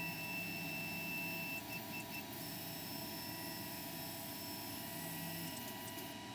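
ACMER Ascarva 4S desktop CNC router moving its gantry and carriage on the belt drive. Its stepper motors give a faint, steady high whine that breaks off briefly about two seconds in, then resumes.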